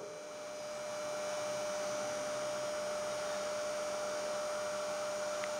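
Steady electrical hum with a constant tone and a low hiss, unchanging throughout: the background noise of the recording between spoken phrases.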